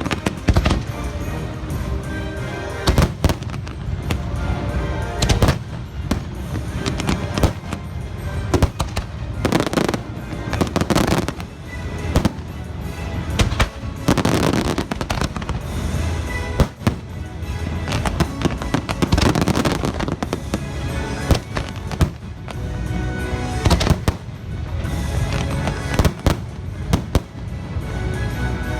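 Fireworks bursting again and again, with sharp bangs and clusters of rapid crackling, over continuous show music.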